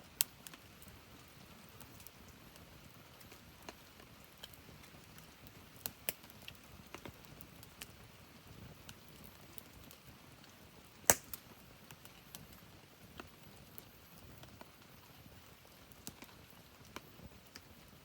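Wood fire crackling: scattered sharp pops and snaps at irregular intervals over a faint steady hiss, the loudest pop about eleven seconds in and another right at the start.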